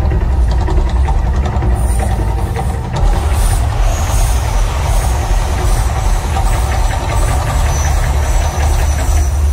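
The Mirage volcano show erupting: a loud, steady deep rumble with a noisy rush of gas flames on top. Dense crackling joins in from about three seconds in as fireballs burst from the volcano.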